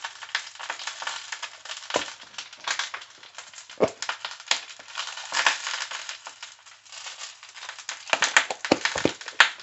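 Sambal ingredients being ground by hand with a pestle in a mortar: an irregular run of crunching and grinding scrapes, with a few heavier knocks of the pestle.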